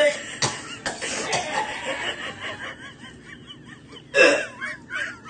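A person gagging loudly, once at the start and again about four seconds in, retching at the smell of a dirty diaper, with laughter in between and after each gag.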